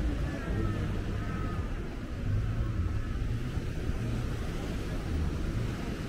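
Outdoor ambience with an uneven low rumble and a steady haze throughout, with no single distinct event.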